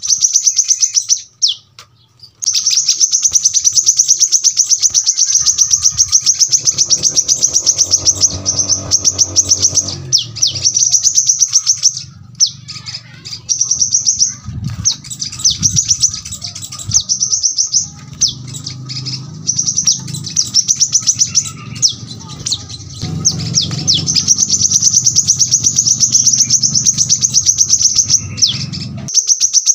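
Brown-throated sunbird (kolibri kelapa) singing long runs of very rapid, closely packed high-pitched chirps, broken by a few short pauses.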